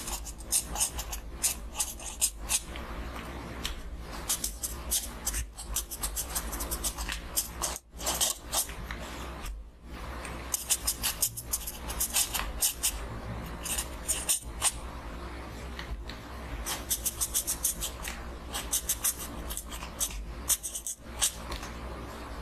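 Pen scratching on notebook paper while writing Chinese characters by hand: quick runs of short strokes, one character after another, with brief pauses between them.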